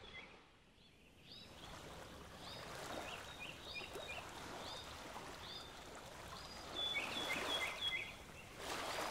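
Birds chirping, short high calls repeated about once a second, some with quick falling notes, over a faint wash of gently lapping water.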